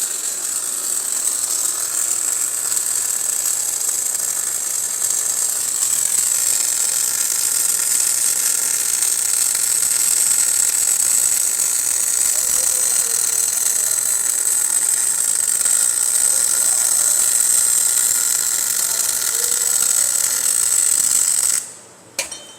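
Electric arc welding on a shock absorber body, sealing the remanufactured shock closed: a steady, continuous hiss that stops abruptly near the end.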